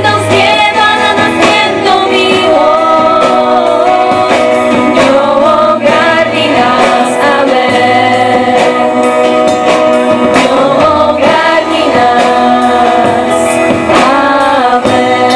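Several women singing a Christian worship song in harmony through microphones, backed by violin and a drum kit.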